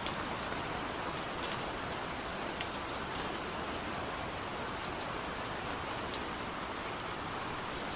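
Steady rain falling, an even hiss with scattered sharp individual drop ticks; the clearest lands about one and a half seconds in.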